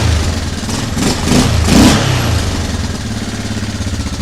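Small vintage carbureted engine, its missing choke mechanism just replaced, running: it surges a few times in the first two seconds, then settles into a steady idle. The running is smooth, a sign that the engine runs fine with the new choke.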